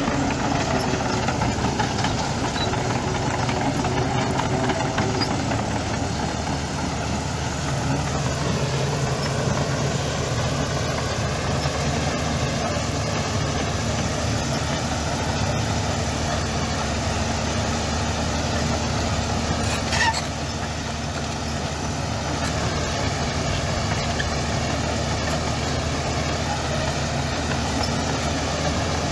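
Heavy diesel engine of earthmoving machinery running steadily, with one sharp knock about two-thirds of the way through.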